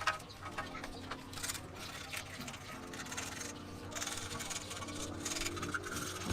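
Paint, softened by chemical stripper, being scraped by hand off a steel motorcycle frame: irregular scratchy strokes of metal over metal, with a low steady hum beneath.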